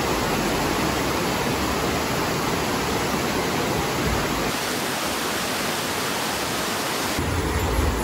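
Steady rushing of a tall waterfall and the stream cascading over rocks below it. The character of the rush changes abruptly a little after four seconds and again near seven seconds.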